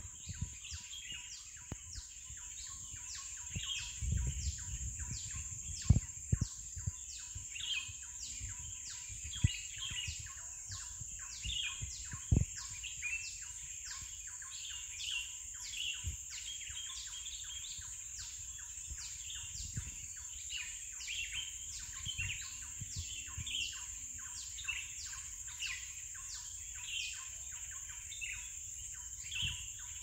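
Wild birds chirping and calling in a dawn chorus, many short notes overlapping throughout, over a steady high-pitched drone. A few dull low thumps stand out, the loudest about six and twelve seconds in.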